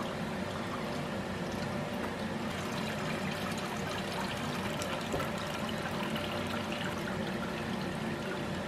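Water poured over wet mushroom pulp in a stainless mesh strainer, trickling and draining through into the bowl beneath, over a steady low hum.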